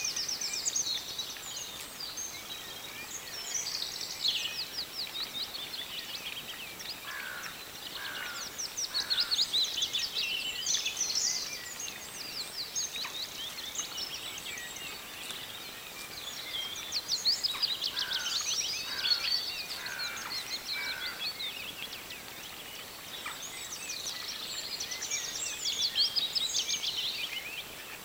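Songbirds singing: repeated quick, high trilling phrases a few seconds long, with short runs of lower, falling notes between them.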